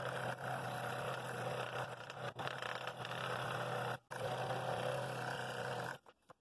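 Scroll saw running and cutting through a wooden bowl blank, a steady motor hum with the buzz of the reciprocating blade in the wood. It breaks off briefly about four seconds in, then runs again and stops near the end.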